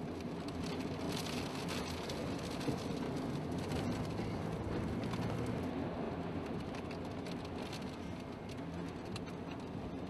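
Steady rush of wind with a light pattering of rain and debris, recorded close to a tornado.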